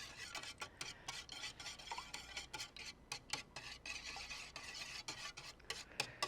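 Milk-and-egg mixture being stirred in a bowl, the utensil making quick, irregular clicks and taps against the bowl.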